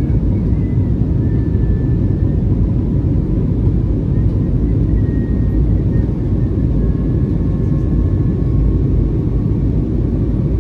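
Steady cabin drone of an Airbus A321neo in flight: jet engine and airflow noise as a constant low rumble heard from a passenger seat.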